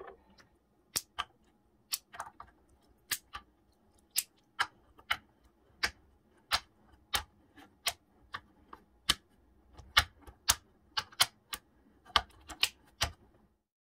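Magnet-fitted plastic infinity cube being folded and unfolded by hand, its blocks snapping together in an uneven run of sharp clicks, about two or three a second.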